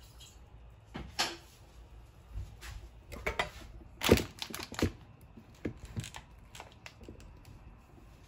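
Kitchen handling noises: a string of sharp clicks and knocks, the loudest about four seconds in, while a glass electric kettle is taken up.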